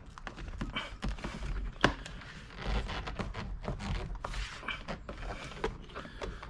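Plastic clicks, taps and rustling as a replacement visor mirror assembly is worked into a car's sun visor and pushed home on its clips, with one sharper click about two seconds in.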